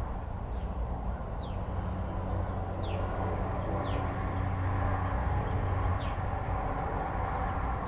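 Steady low outdoor rumble, with a bird chirping about five times, each chirp short and falling in pitch, one to two seconds apart.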